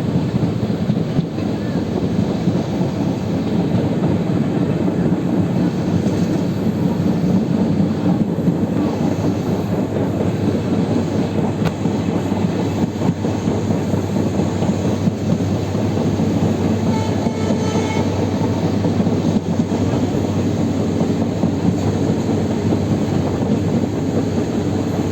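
Steady, continuous rumble of a moving vehicle, heaviest in the low range, with a faint high ringing about two-thirds of the way through.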